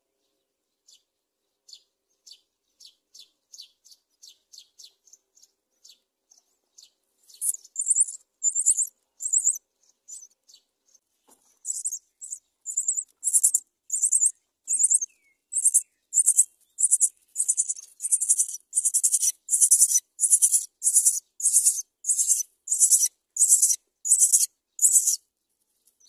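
Myna nestlings begging for food with short, high, repeated cheeps. The calls are faint at first, then turn loud and insistent at about one and a half a second from about a quarter of the way in, with a brief lull in the middle.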